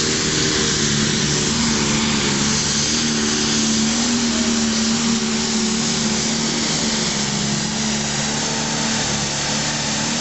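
A John Deere pulling tractor's diesel engine running flat out under load as it drags a weight-transfer sled, a loud, steady drone that holds its pitch throughout.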